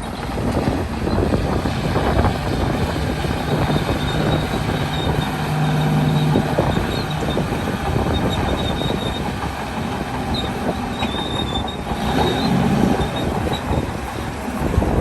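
Crawler bulldozer at work: diesel engine running under load with steel tracks clanking and squealing. The engine note strengthens for a couple of seconds about five seconds in.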